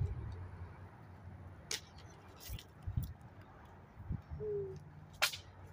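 Double-stack container freight train rolling past very slowly: a low steady rumble with a few sharp clicks and knocks, and one short, slightly falling note about four and a half seconds in.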